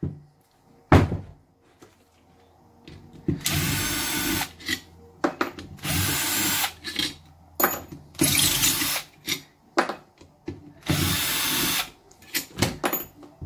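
Cordless drill-driver spinning out the long case through-bolts of a Denso alternator, in four runs of about a second each. Short knocks and clicks from handling the housing and bolts come between the runs.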